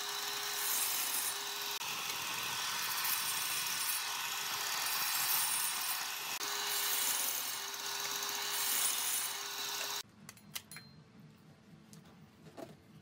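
Miter saw running and cutting through a stack of wood strips, a steady motor whine under the noise of the blade in the wood. It cuts off suddenly about ten seconds in, leaving a low background with a few faint clicks.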